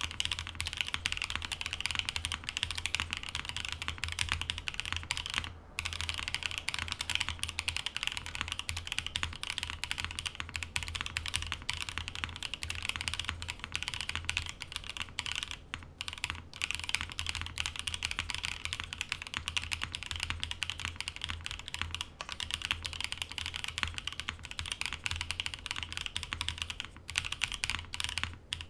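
Continuous fast typing on a Musashi TKL custom mechanical keyboard with Tribosys 3204-lubed Vertex V1 switches in an aluminium plate: a dense run of keystrokes, broken by a few short pauses, the first about five and a half seconds in.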